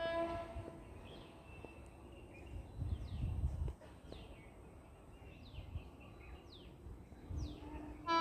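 Train horn of an approaching express: one note fades out at the very start, then it sounds again faintly near the end and jumps to a loud blast. In between, birds give several short falling chirps, and there is a brief low rumble about three seconds in.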